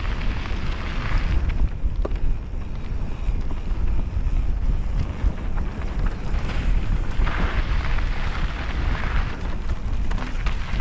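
Wind buffeting a mountain bike rider's action-camera microphone as a heavy, steady rumble, over the noise of tyres rolling on granite slab and dirt trail, with a sharp click about two seconds in.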